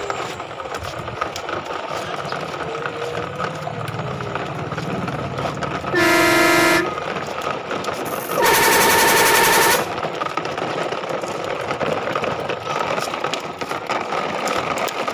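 Plastic toy trucks rolling and rattling over brick paving as they are towed along on a string, with two loud truck-horn blasts: a short one about six seconds in and a longer one about eight and a half seconds in.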